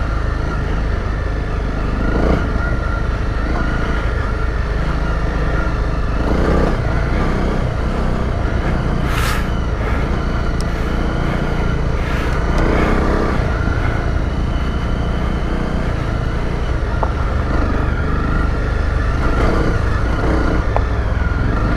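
Honda CRF250 Rally's single-cylinder engine running steadily while riding a dirt trail, with heavy wind rumble on the helmet microphone.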